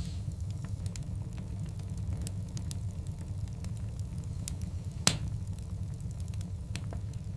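Wood fire of large burning logs crackling, with scattered small pops and one loud pop about five seconds in, over a steady low rumble.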